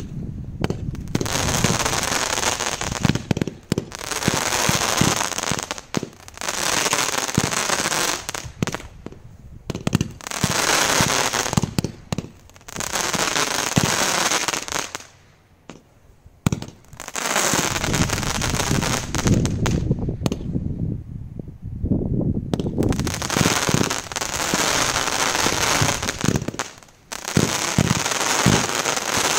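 Epic Fireworks 'Swift Shift' 200-shot firework cake firing in fast strings of shots. It stops briefly about halfway through and again near the end.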